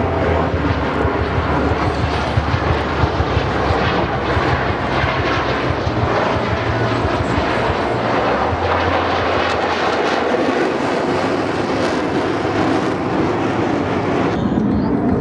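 Jet engine noise from KAI T-50B Golden Eagle jets flying a display pass overhead: a loud, steady rushing sound. Shortly before the end the higher part of the sound falls away.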